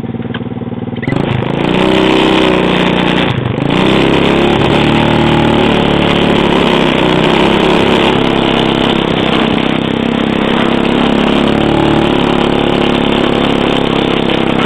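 Small 110 cc ATV engine that goes from a lower, steady run to a loud, higher-revving run about a second in. It dips briefly a couple of seconds later, then holds steady at high revs.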